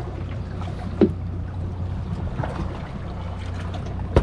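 Steady low hum of a boat on the open water, with water trickling and a single sharp knock about a second in while a deep-drop rig with fish on it is handled over the gunwale.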